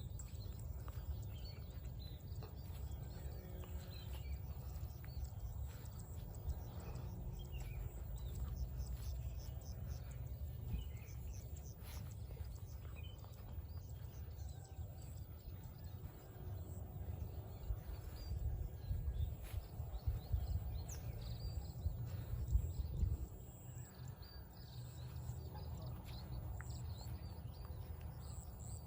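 Walker's footsteps on a field path, with a steady low rumble and scattered bird chirps.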